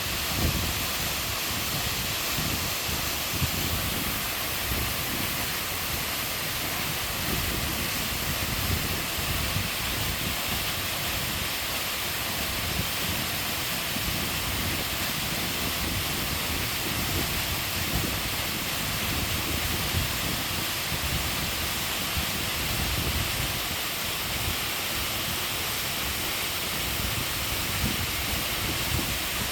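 Waterfall pouring steadily into a mountain stream, a continuous rushing of falling water with low churning.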